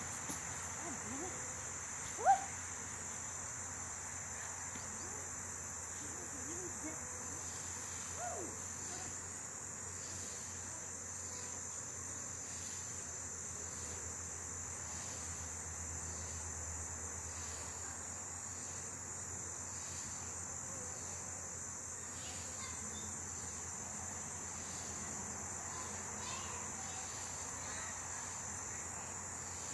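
A steady high-pitched insect trill, with a single sharp click about two seconds in.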